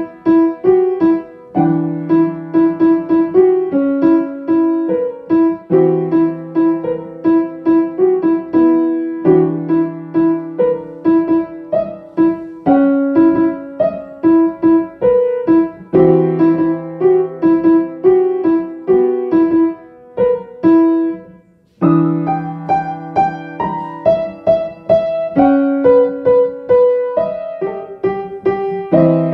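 Piano music: a melody of struck, decaying notes over repeating low notes, with a short break about two-thirds of the way through.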